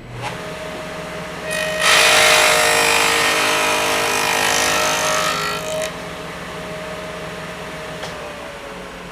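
Sears Craftsman contractor table saw fitted with a stacked dado blade, running, then cutting a groove through a wood test piece for about four seconds from a second and a half in. It runs free after the cut, and its pitch starts to sink near the end as the blade slows.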